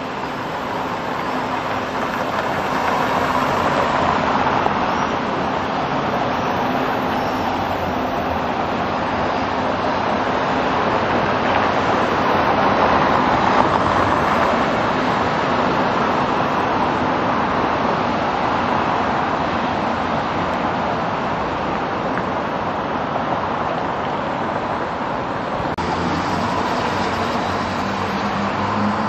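Steady city street traffic noise: a continuous wash of passing vehicles and engines, swelling a little in the first few seconds.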